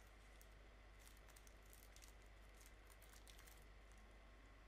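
Faint crinkling of the plastic bags holding the yellow and blue parts of a two-part epoxy putty as they are handled, with a cluster of small crackles between about one and three and a half seconds in.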